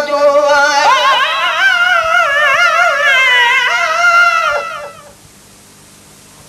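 A solo voice singing a Sindhi devotional naat, holding one long wavering melismatic phrase that slides downward and stops about five seconds in.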